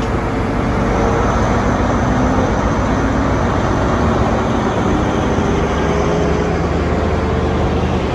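A GWR Class 43 HST power car's diesel engine running as the train moves slowly past close by, a steady heavy drone with faint tones that rise slightly as it picks up speed.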